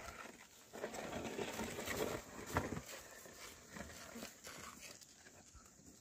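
Oxen pulling a wooden plough through loose soil: rustling and scraping of earth and hooves, with a brief call about two and a half seconds in, dying away to faint scuffs after about five seconds.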